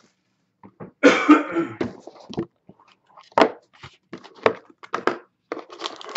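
Cardboard trading-card hobby box being handled and opened by hand: a rustling, scraping burst about a second in, then scattered light taps and knocks of cardboard.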